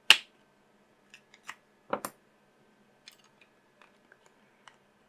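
Plastic clips of a Nokia Lumia 520's mid frame clicking loose as a pry tool works them out. A sharp click comes right at the start, a double click about two seconds in, and fainter ticks and taps follow.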